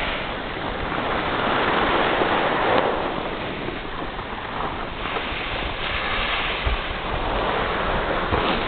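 Steady rushing noise of wind over the microphone and skis sliding on snow, as the person filming skis downhill.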